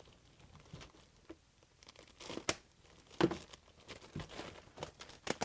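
A clear plastic bag crinkling and rustling in irregular bursts as hands unwrap a cordless angle grinder from it, with a few sharper crackles.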